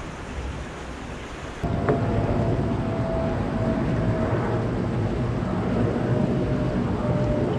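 Wind rumbling on the microphone over the steady rush of a shallow creek running over rocks. It jumps suddenly louder about a second and a half in.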